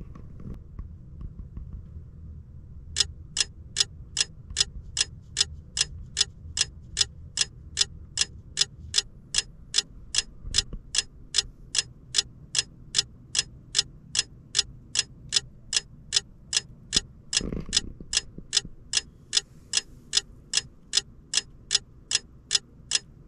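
Fast, even clock ticking, about three ticks a second, starting suddenly about three seconds in. A single dull thump comes about two-thirds of the way through.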